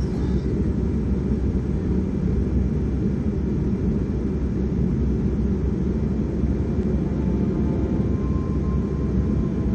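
Steady low rumble of an airliner's cabin as the jet taxis on the ground.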